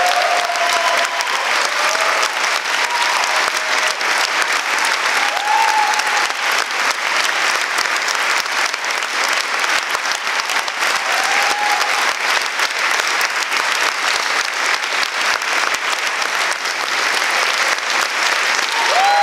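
A large audience applauding steadily, dense continuous clapping with a couple of brief voices calling out over it.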